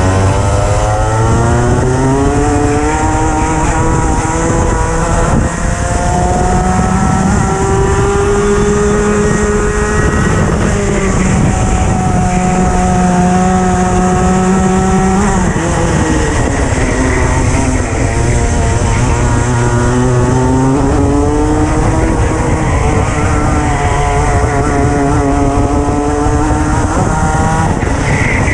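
Racing kart engine heard onboard at race speed. Its pitch climbs steadily along each straight and drops sharply as the driver lifts off for a corner, several times over.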